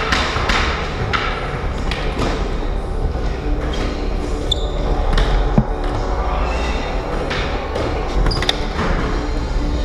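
Skateboard wheels rolling steadily over a plywood bowl, with irregular sharp knocks and clacks of the boards and trucks on the wood.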